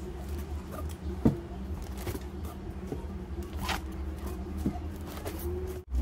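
Brown paper bags rustling and scraping against cardboard as bundles are handled in and lifted out of a box, with a sharp tap about a second in, over a steady low hum.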